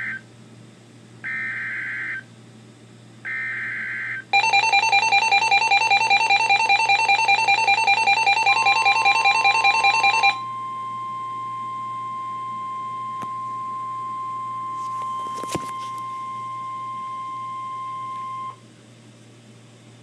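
Emergency Alert System SAME header bursts on NOAA Weather Radio: the tail of one and two more short, buzzy digital data bursts about a second apart. Then the Midland weather radio's own alert alarm sounds loudly for about six seconds, a fast-pulsing warble. Under it the steady 1050 Hz NOAA Weather Radio warning alarm tone starts, and it carries on alone until shortly before the end, with a brief click in the middle.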